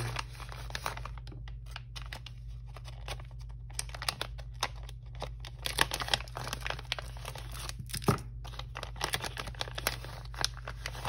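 Plastic zip pouch crinkling and rustling as rolls of washi tape are pulled out of it, with light clicks and taps and one louder knock about eight seconds in.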